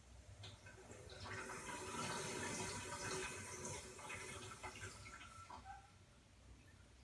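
Water suddenly running through a LIXIL toilet, swelling about a second in and dying away over the next few seconds, one of the toilet's abnormal noises.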